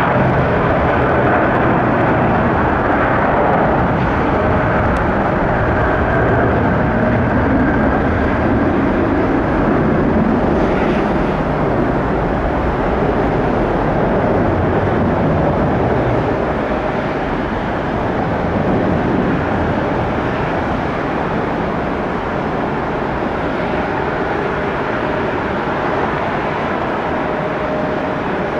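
Boeing 717's two Rolls-Royce BR715 turbofan engines at takeoff thrust: loud, steady jet noise through the takeoff roll and climb-out, easing slightly about halfway through as the airliner climbs away.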